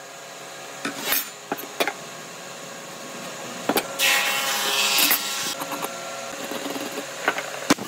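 A metal speed square and pencil handled on a hardwood block: a few sharp clicks and knocks as the square is set down and shifted, and a scrape lasting over a second about four seconds in.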